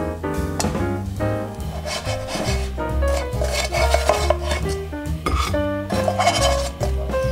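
Fried bread slices scraping and sliding across a nonstick frying pan, pushed out with a wooden spatula, loudest midway through. Background music with a steady bass line plays throughout.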